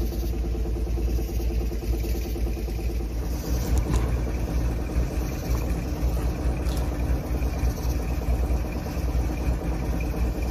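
A 1957 Chevrolet Bel Air's six-cylinder engine running steadily with a low rumble.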